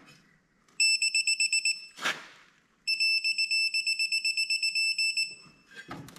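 Quinn digital torque wrench beeping in two runs of fast, high-pitched beeps, about a second and then about two and a half seconds long, signalling that the set torque is reached as the secondary clutch bolt is tightened. A short clunk falls between the two runs.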